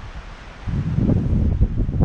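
Wind buffeting the camera microphone: a low, irregular rumble that swells about two-thirds of a second in.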